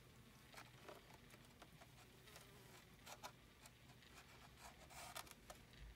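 Near silence: room tone with a low hum and a few faint, short clicks and rustles, a small cluster of them about five seconds in.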